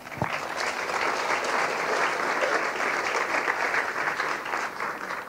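Audience applauding, a dense patter of many hands clapping that breaks out suddenly and holds steady.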